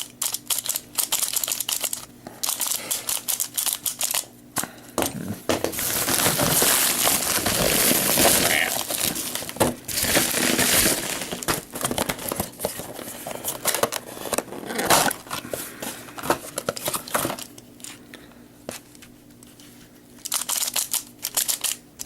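Rapid plastic clicking from QJ Pyraminx puzzles being turned, broken in the middle by several seconds of plastic packaging crinkling and tearing.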